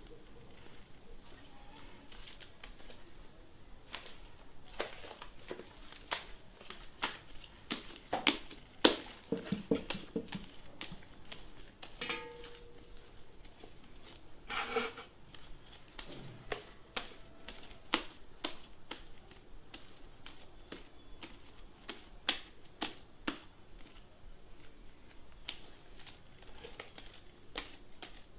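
Homemade glue slime being kneaded and stretched by hand, giving irregular sticky clicks and pops, busiest about a third of the way in and again around the middle.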